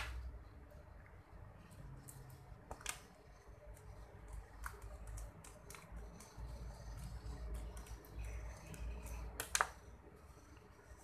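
Small clicks and taps of a screwdriver and fingers on the metal body screws and aluminium frame of an overhead fishing reel as the body screws are tightened, with a sharp click at the start and a louder one near the end.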